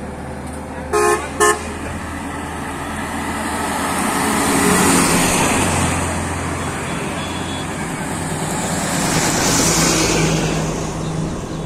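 Highway traffic going by: two short vehicle-horn toots about a second in, then a car passing with a swelling rush of engine and tyre noise about halfway through, and a loaded truck passing close near the end.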